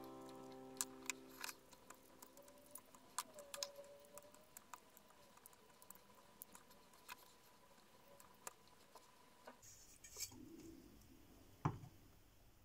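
Faint, irregular clicks and taps of small metal switch parts being handled and scrubbed with brushes in a tub of soapy water.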